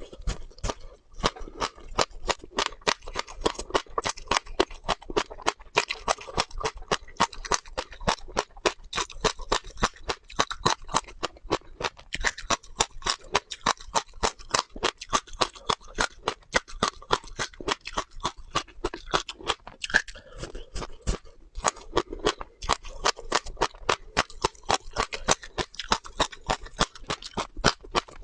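Close-miked crunching of crisp seeds being bitten and chewed in the mouth, a steady run of sharp cracks several a second.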